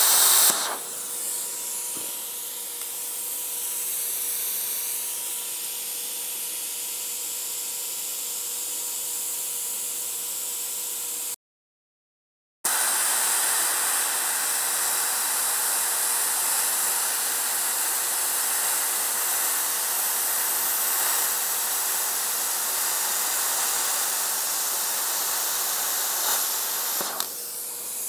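Plasma cutter, set at about 30 amps, hissing steadily as its arc cuts through steel plate along a guide bar. The hiss drops out for about a second near the middle, then runs loud again until the cut ends shortly before the close, leaving a faint steady hum.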